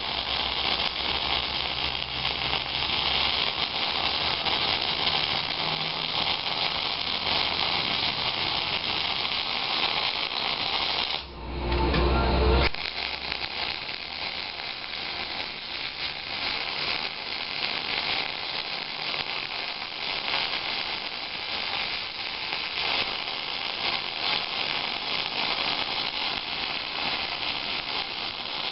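Miller 251 MIG welder's arc running a bead on steel plate, a steady hissing crackle. The arc breaks off about eleven seconds in, with a short low rumble for a second or so, then strikes again.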